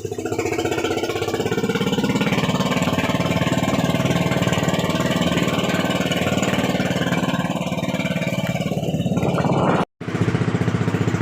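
Engine of a motorised bangka fishing boat running steadily with a fast, even putter. The sound cuts out for a split second near the end, then carries on.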